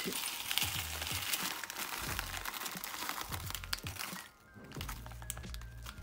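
Plastic Oreo wrapper crinkling as crushed Oreo cookie pieces are shaken out of it into a mug, with many small clicks of crumbs landing, for about four seconds before it quietens. Soft background music runs underneath.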